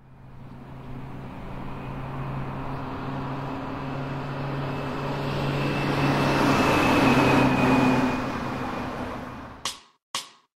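Outdoor background rumble with a low steady hum, like passing traffic. It swells to a peak about seven seconds in, then fades away and is followed by two short, sharp clicks near the end.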